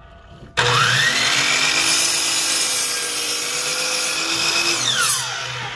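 DeWalt sliding miter saw switched on, its motor whine rising as the blade spins up, then running steadily while it cuts through a piece of wood. Near the end it is switched off, and its whine falls quickly as the blade slows.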